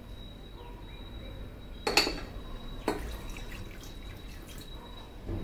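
Water poured from a small glass bowl into a stainless steel saucepan, splashing into the pot. There is a sharp knock about two seconds in, the loudest sound, and another a second later as the bowl is handled.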